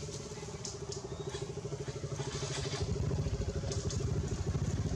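A small engine running with a fast, even pulse, growing louder about three seconds in.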